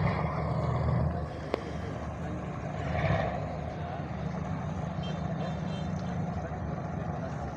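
Steady low engine rumble running throughout, with faint voices in the background and a single sharp click about a second and a half in.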